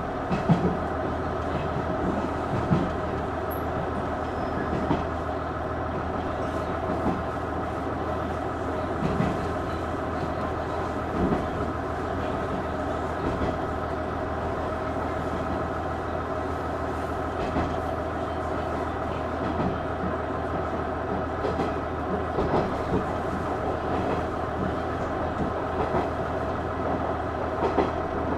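Cabin running sound of a KiHa 110 series diesel railcar: the DMF14HZ diesel engine runs steadily under way, with a sharp wheel click over a rail joint every few seconds.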